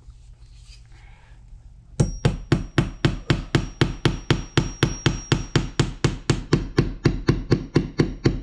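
A hammer driving nails into a wooden board: after about two seconds of quiet, a steady run of quick blows begins, about three to four a second, with a thin high ring over the strikes.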